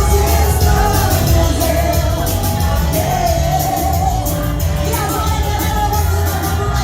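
Tecnomelody song with a voice singing the melody over a heavy, steady electronic beat with deep bass.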